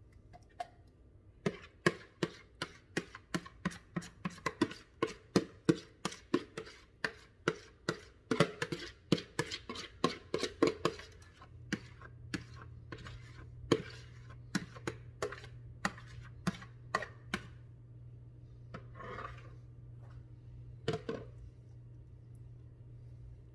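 Kitchen utensils knocking and tapping in a quick run of sharp strikes, about two or three a second, thinning out after about fifteen seconds. A low steady hum comes in about halfway through.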